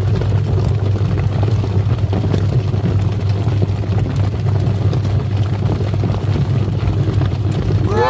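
Twin-tub washing machine's wash motor running, with a steady low electric hum and water churning in the wash tub.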